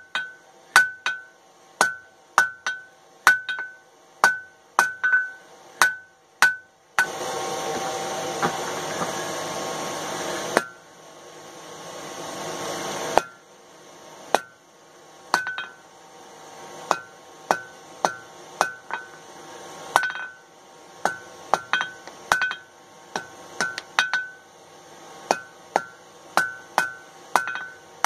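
Hand hammer blows on hot flat steel stock over an anvil, about two a second, each with a bright ring, while the bar is forged evenly on both sides. About seven seconds in the blows pause for several seconds under a steady rushing noise that fades away, then the ringing hammer strikes resume.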